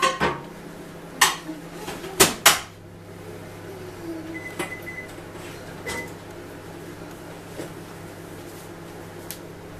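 Glass tabletop being cleaned with a trigger spray bottle and a cloth: a few short, sharp sprays or knocks in the first three seconds, then quieter wiping over a steady low hum.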